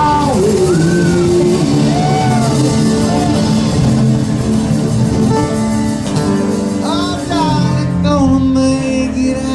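Live acoustic string band playing: mandolin, acoustic guitars, banjo and electric bass, with voices singing over them.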